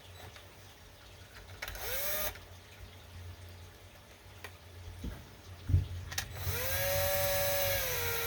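Power drill/driver motor whining as it drives screws into the plastic manifold housing of a pond air pump: a short burst that rises in pitch about two seconds in, then a longer run from about six and a half seconds that rises, holds steady and winds down near the end. A few knocks from handling the parts in between.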